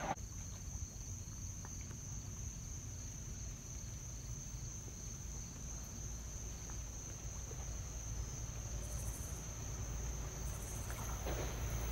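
A steady high-pitched chorus of insects, with a low rumble from an approaching train growing toward the end.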